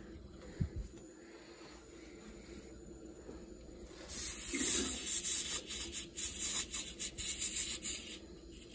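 Air hissing and sputtering out of the automatic air vent on top of a Webstone brass air separator, starting about four seconds in, as the refilled hydronic boiler system comes up to pressure: trapped air being purged from the water.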